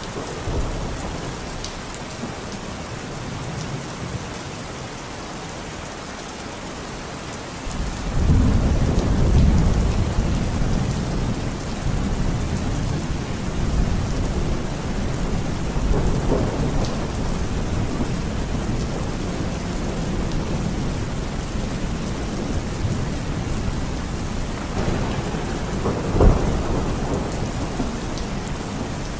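Heavy rain pouring steadily. About eight seconds in, thunder rolls in with a deep rumble that carries on, and a sharper thunderclap comes near the end.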